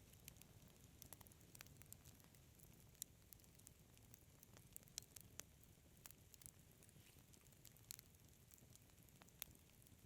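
Wood fire crackling faintly: irregular sharp pops and ticks, a few louder than the rest, over a low steady rumble.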